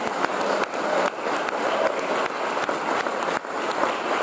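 Large audience applauding, steady dense clapping throughout.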